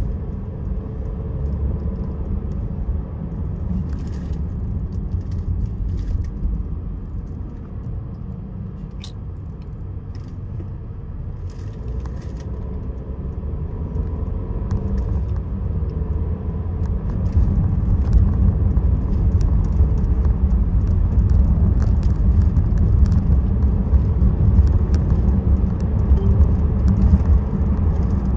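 Low, steady rumble of a car's engine and tyres heard from inside the cabin while driving. It grows louder about two-thirds of the way in, with a few faint clicks.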